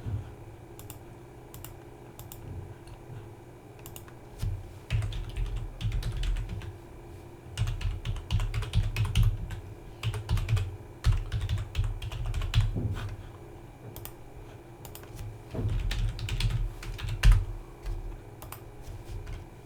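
Typing on a computer keyboard: several fast runs of keystrokes with short pauses between them, and scattered single clicks in the quieter stretches.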